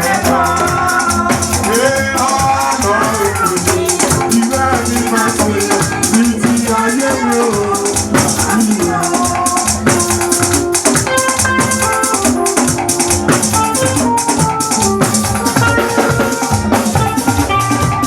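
Live praise-band music: a shaker rattling a fast, steady beat over drums, with a melody line carried above.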